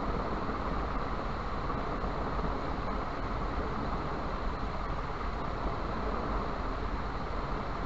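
Steady background noise: an even hiss with a low rumble, with no distinct events.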